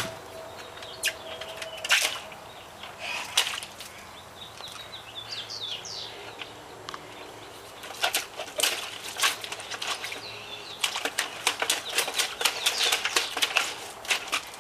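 Small hands splashing and slapping water in a plastic bucket of rainwater. A few scattered splashes come first, then quicker, denser splashing from about eight seconds in.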